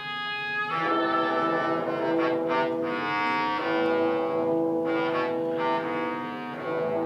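Live orchestra playing, with bowed strings holding sustained chords that change every second or so.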